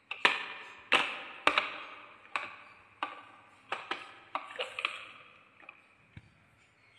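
A series of sharp clacks, each with a short ring, as a hard plastic toy dump truck is handled and set down among wooden blocks. About ten come in the first five seconds, growing sparser and fainter.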